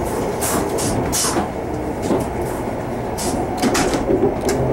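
Sapsan high-speed electric train running, heard from inside the passenger car: a steady rumble and hiss, with brief sharp ticks now and then.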